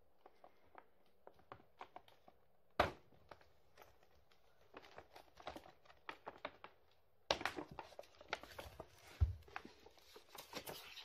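Paper shopping bag rustling and crinkling as it is handled, with a sharp crackle about three seconds in and another about seven seconds in, then a short low thump a couple of seconds later.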